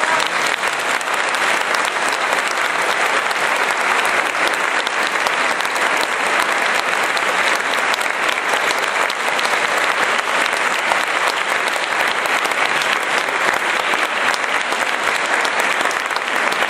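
Audience applauding, a dense, steady clapping that keeps up without a break.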